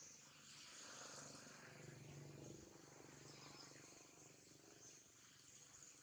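Near silence: faint outdoor forest ambience with a steady, high-pitched insect drone and a faint low hum beneath it.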